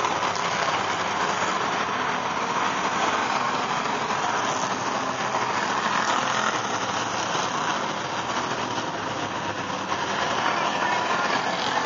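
A pack of enduro race cars running laps on an oval track, many engines blending into one steady, dense wash of sound.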